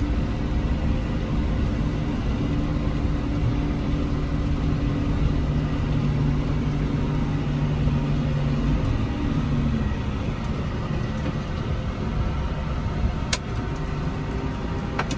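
A vehicle engine running steadily while driving, its even hum fading out about ten seconds in, over a low road rumble; a single sharp click comes near the end.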